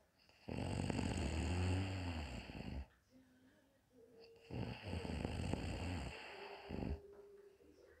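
Woman snoring in her sleep: two long snores, each about two and a half seconds, the second starting about halfway through.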